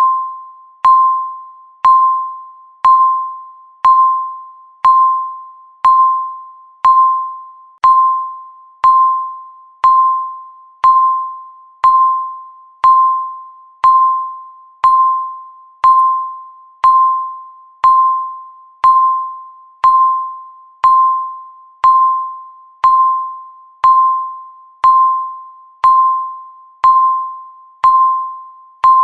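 Countdown timer beeping once a second: the same single tone each time, starting sharply and fading away before the next.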